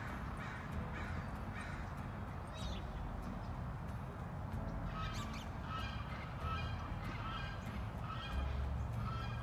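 Canada geese honking, faintly at first, then a run of repeated honks about two a second from about halfway through, over a steady low rumble.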